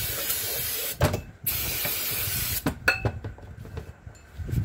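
Aerosol brake cleaner sprayed onto a hydraulic cylinder barrel: a steady hiss that stops about a second in, a brief pause, then a second hiss of just over a second. Light handling clicks and rag rustling follow.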